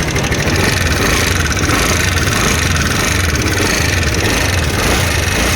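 TVS Ntorq 125 BS6 scooter's single-cylinder engine idling with an abnormal noise: a fast, even rattle over the steady running.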